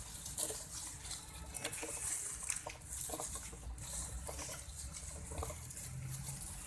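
Dry leaf litter crackling and rustling irregularly under moving monkeys, over a steady low rumble on the microphone.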